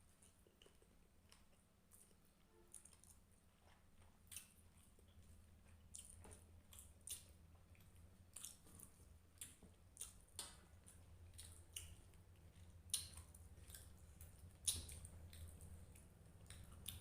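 Faint chewing and wet mouth clicks of people eating rice with hilsa fish curry, as scattered soft smacks over a low steady hum.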